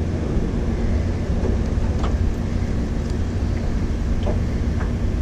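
An engine running steadily at low speed, a constant low hum with a noisy rush over it, and a few faint clicks.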